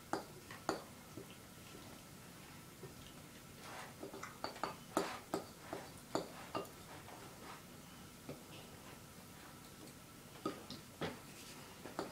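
Hands mixing dry flour in a stainless steel pot, giving faint light taps and knocks against the metal. The taps come unevenly, bunched in the middle and again near the end.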